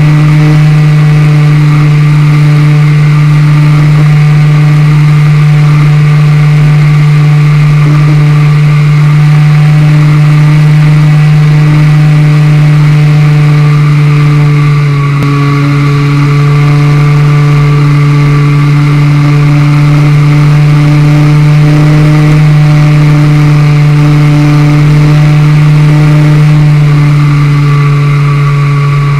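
ST Model Discovery RC plane's motor and propeller running at steady cruise throttle, a loud, even drone heard from on board the plane. About halfway through the pitch drops slightly and the level dips briefly, then holds steady again.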